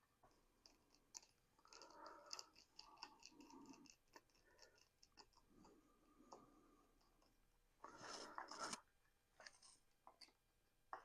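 Faint ticking and scraping of a T20 Torx screwdriver and small metal carburetor parts being handled as screws are driven in, with a brief louder rubbing scrape near the end.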